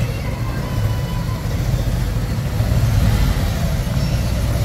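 Harley-Davidson Ultra Classic's V-twin engine running at low speed as the heavy touring bike creeps forward, a steady low rumble that swells slightly about three seconds in.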